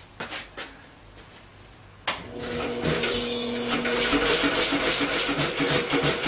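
Electric motor switched on about two seconds in, spinning up with a steady hum and cranking a homemade two-cylinder engine, built from an air compressor, through a belt. The engine turns over with a fast, even beat of about four to five strokes a second as it is cranked for starting.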